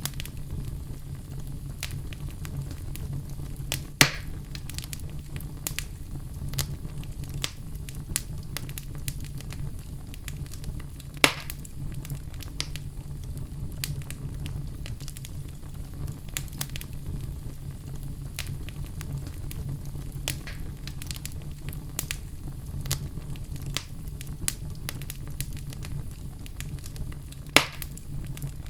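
Wood fire crackling in a fireplace: a steady low rumble under frequent small crackles, with three louder pops, about four seconds in, at about eleven seconds and near the end.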